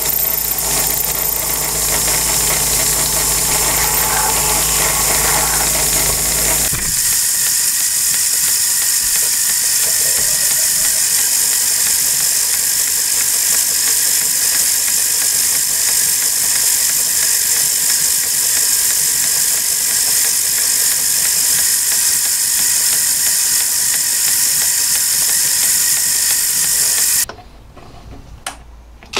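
Myford ML7 metalworking lathe running as a twist drill in the tailstock bores into an aluminium disc, a steady machine noise with a low hum. About seven seconds in the low hum drops away abruptly, leaving a steady hiss-like running and cutting noise as a larger drill cuts. About two seconds before the end the lathe stops and it goes much quieter.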